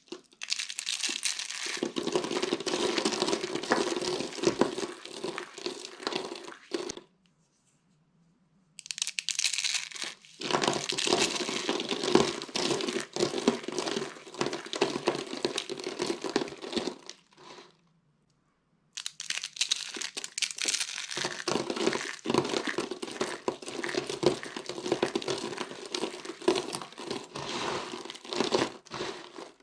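Dry carved soap being crushed, crunching and crackling densely in three long stretches separated by short silences.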